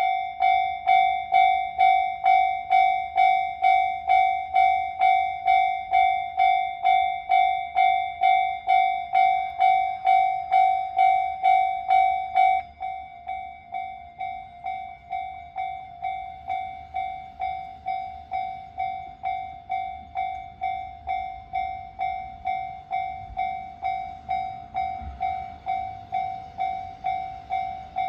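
Japanese railway level-crossing alarm ringing its repeated electronic 'kan-kan' tone, about two strikes a second, warning that a train is coming. About halfway through it becomes noticeably quieter and keeps the same beat.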